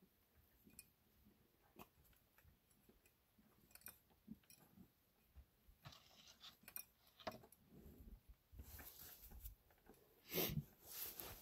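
Near silence with faint scattered clicks and rustles, and one brief louder rustle about ten seconds in.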